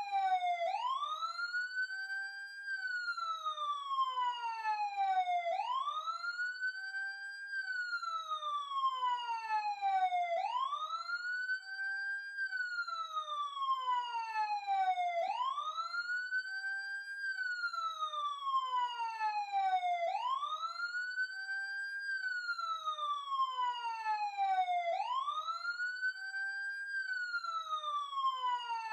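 Police siren in a slow wail: each cycle the pitch sweeps up quickly, holds briefly at the top, then glides slowly down, repeating about every five seconds.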